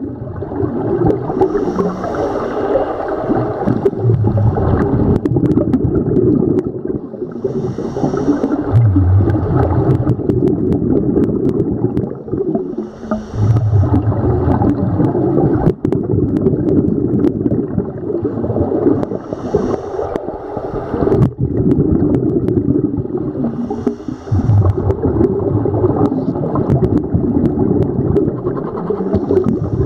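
Scuba regulator breathing heard underwater: a hiss on each inhalation, five times at intervals of about five to six seconds, each followed by the gurgle of exhaled bubbles, over a constant underwater rumble.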